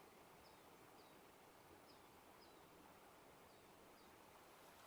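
Near silence: faint outdoor ambience with a small bird's faint, high chirps repeating about twice a second.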